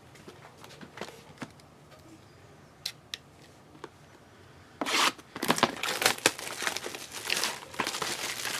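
A few faint clicks and taps, then from about five seconds in a foil trading-card pack wrapper being torn open and crinkled.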